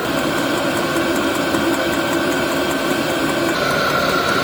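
MaXpeedingrods 5 kW 12 V diesel air heater running, its blower fan and burner giving a steady whirring hum with a whine. About three and a half seconds in the sound shifts and the whine grows louder as the fan ramps up.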